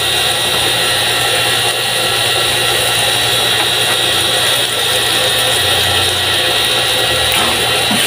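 Oil sizzling steadily in a steel frying pan of chicken and onion, frying over a wood fire, with a steady low hum underneath.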